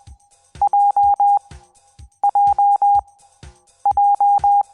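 Morse code (CW) tone sending the letter J, dot-dash-dash-dash, three times over. It is a single steady beep switched on and off in crisp, evenly spaced groups, with a short pause between repeats.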